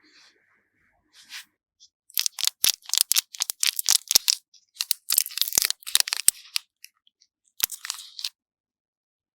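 Crisp crunching ASMR sound effect: dense bursts of sharp, crackly clicks from about two seconds in to about six and a half, then a shorter burst near the end.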